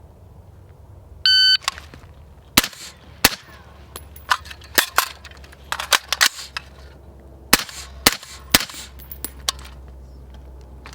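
A shot-timer beep, then about a dozen rifle shots from a 12.5-inch-barrel AR-15, fired in quick clusters over several seconds.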